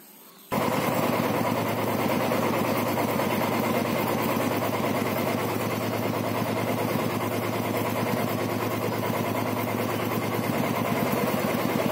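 Royal Enfield Bullet's single-cylinder engine running steadily. The sound comes in abruptly about half a second in.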